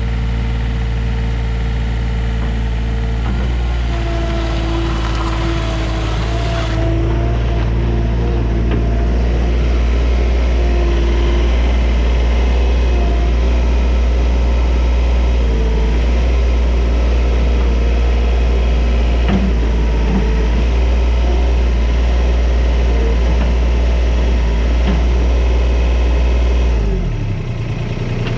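A vehicle engine running steadily with a deep hum; near the end its pitch and level drop briefly, then it settles again.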